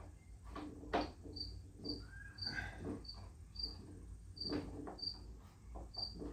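A cricket chirping, short high chirps repeating every half second or so, with a few sharp metallic knocks and clicks from hand tools working on nuts and bolts.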